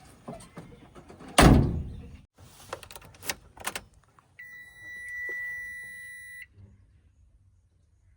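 A heavy thump with several sharper knocks around it, then one steady high-pitched beep lasting about two seconds.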